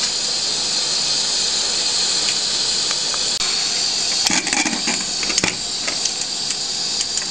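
Aluminium pressure cooker lid being closed and locked by its handle: a short clatter of metal clicks and knocks about four to five and a half seconds in, over a steady high hiss.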